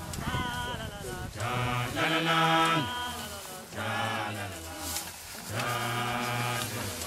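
Background music: chanted group singing, several voices holding long steady notes in about four phrases with short breaks between them.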